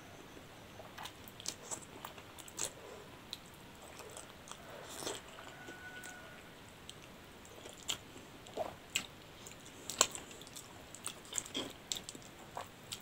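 Close-miked eating sounds of a person slurping and chewing spicy noodles, with wet mouth clicks and smacks at irregular intervals.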